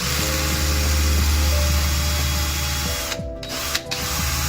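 Small power drill with a tiny bit spinning and drilling into a laptop part. It cuts out briefly twice a little over three seconds in, then runs on.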